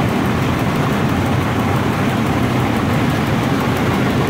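Train running along the track, heard from the front of the train: a steady, even rumble with no distinct clicks or tones.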